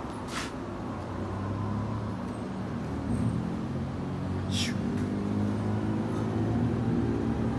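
A motor or engine running steadily with a low, even hum. Two short clicks, one near the start and one about halfway through.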